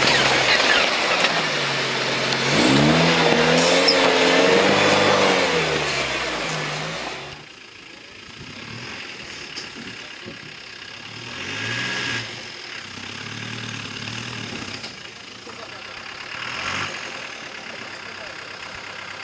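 Off-road 4x4 engine revving up and down as the vehicle works its way down a steep rocky descent, loud for the first several seconds. About seven seconds in the sound drops away to a quieter running engine with two short revs.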